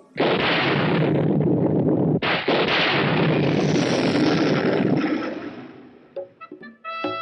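A loud rumbling crash sound effect, starting suddenly and surging again about two seconds later, then dying away after about five seconds. Pitched musical notes come in near the end.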